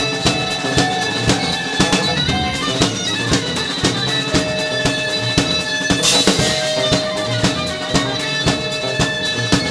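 Live rock band playing an instrumental passage: a drum kit hitting steadily under held melody tones from the other instruments.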